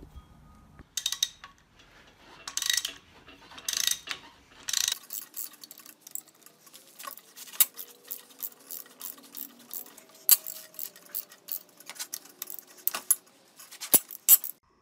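Hand ratchet wrench clicking as the rusted cylinder head bolts of a flathead six engine are broken loose: a few quick ratchet runs, then a long series of separate sharp clicks.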